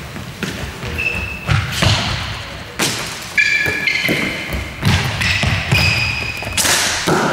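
Floorball play: several sharp hits of sticks on the plastic ball and of shots and thuds in the goal area, mixed with short high squeaks of sneakers on the court floor. The loudest hit comes near the end.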